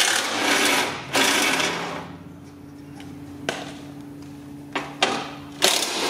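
Cordless drill spinning a 10 mm socket to run off the window regulator's retaining nuts: two runs of about a second each, back to back. A few light clicks follow, then another short run near the end.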